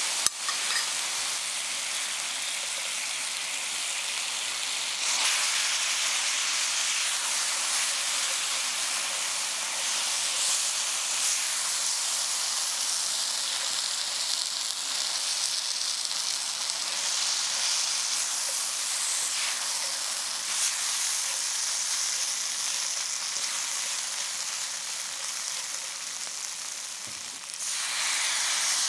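Chicken pieces and peanuts sizzling steadily in hot oil in a cast-iron frying pan. The sizzle jumps louder about a second before the end as liquid is poured into the pan.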